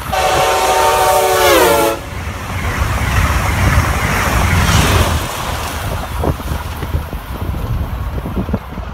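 Amtrak Acela Express high-speed train sounding its multi-tone horn as it passes at speed. The horn chord drops in pitch as the train goes by and stops about two seconds in. Then comes a long rush of the cars and wheels on the rails, slowly fading.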